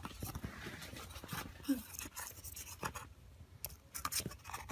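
A lovebird's claws and beak scratching and tapping at a paper tube on a fabric sofa: light, irregular scrapes and ticks.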